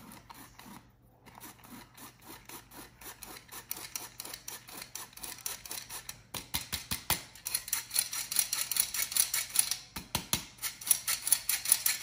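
Tin hand-held flour sifter being worked over a plastic bowl: fast, rhythmic metallic clicking and scraping of the sifter's blades against its mesh, about four strokes a second. It grows louder partway through and pauses briefly near the end.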